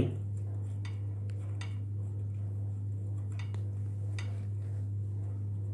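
A few light metallic clicks and clinks from handling the ceiling fan's motor as its lead wires are fed back through the hollow shaft, over a steady low electrical hum.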